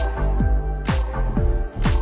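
Electronic background music with a steady beat: a deep kick drum that drops in pitch about twice a second and a sharp clap or snare about once a second.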